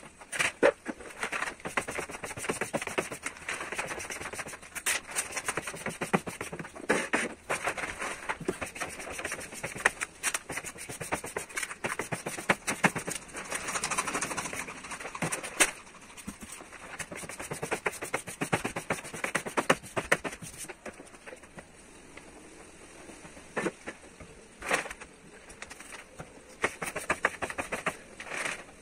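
Squeegee scraping and rubbing over carbon-fibre vinyl wrap film as it is pressed onto a car roof, with the film rustling and irregular sharp clicks and taps throughout; it goes quieter for a while past the middle.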